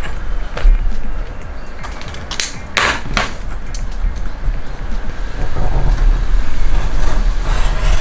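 A steel ruler and craft knife worked on a leather hide: the ruler scraping and knocking into place, with a few sharp scrapes about two and a half to three seconds in, then the knife rasping through the leather along the ruler over the last few seconds.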